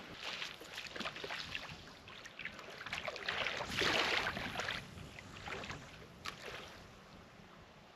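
Shallow, calm sea water splashing and sloshing around a wader's legs as a spinning rod is cast, with a swelling rush of noise about three to four seconds in, then settling quiet.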